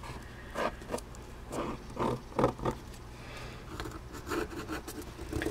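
A pen scratching on paper as it traces around a paper pattern piece, in short irregular strokes about half a second apart.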